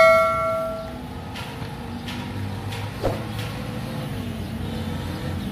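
Ringing metallic tones from a bell-like strike fade away over the first second. A steady rumble of road traffic follows, with a single sharp click about three seconds in.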